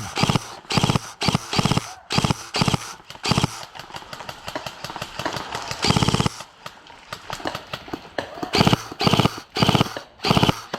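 Airsoft rifle firing short rapid bursts again and again, with a pause midway followed by a longer burst and a fresh run of short bursts near the end.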